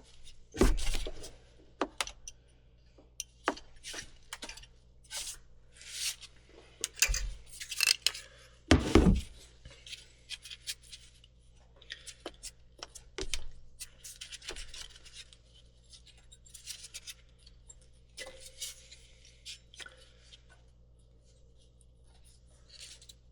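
Hand tools clinking, knocking and scraping against metal engine parts in irregular clatters while a serpentine belt and alternator are being worked on. There are heavier thuds about a second in and about nine seconds in.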